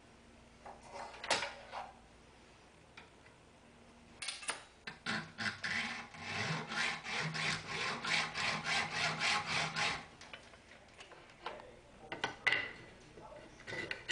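Hand hacksaw cutting aluminum angle: an even run of rasping back-and-forth strokes, about three a second, for some five seconds in the middle. A few separate knocks and clicks from handling the clamped metal come before and after the sawing.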